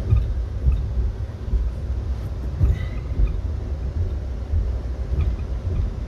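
Low, steady rumble inside an Amtrak Heartland Flyer passenger coach as the train gets under way, with a faint hiss above it.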